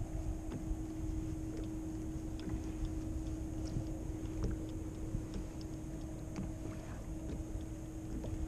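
Wind and small waves around a fishing kayak on open water: a steady low rumble with a steady low hum under it and small scattered clicks and taps.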